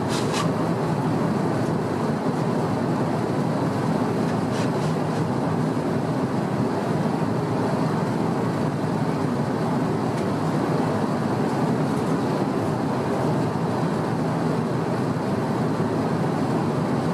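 Steady cabin noise of an Airbus A350-900 in flight: a constant low rush of airflow and engine drone, with a few faint clicks right at the start and about four and a half seconds in.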